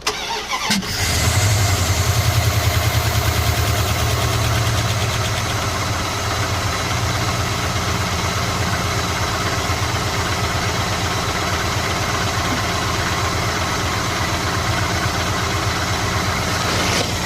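Chrysler 5.2 L Magnum V8 cranked over and catching within about a second, running a little faster and louder at first, then settling into a steady idle. The idle carries a repeating knock that the owner can't place as either lifter noise or rod knock.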